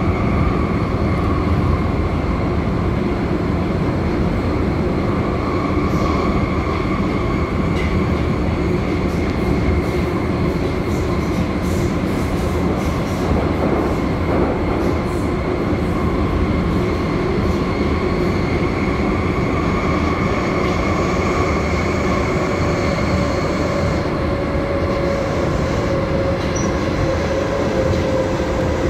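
Metro train running, heard from inside the passenger car: a steady rumble of wheels on rails with a few whining tones above it. In the last several seconds one whine falls slowly in pitch.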